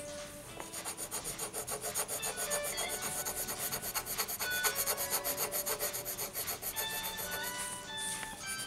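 Coloured pencil rubbing on paper in rapid back-and-forth shading strokes, about five or six a second, a steady dry scratching.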